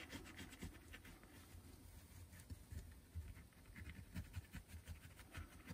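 Faint scratching of a gold Sakura Gelly Roll Metallic gel pen on black paper: many short, irregular strokes as an area is roughly coloured in.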